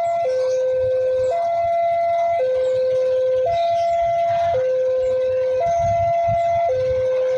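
Railway level-crossing warning alarm sounding its two-tone signal, alternating between a low and a high tone about once a second, which warns that a train is approaching the crossing.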